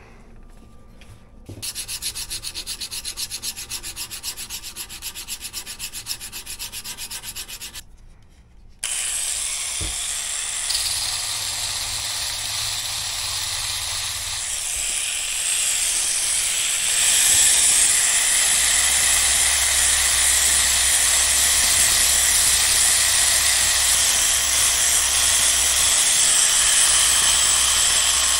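Quick, even back-and-forth strokes of sanding on the steel blade of a pair of tailor's shears, resurfacing it to take out pits and discoloration. After a short pause a steady motor hum with a hiss starts and runs on, getting louder past the middle.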